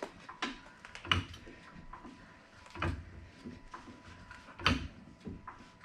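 Scattered clicks and knocks from a car being raised on a jack, three louder knocks about two seconds apart.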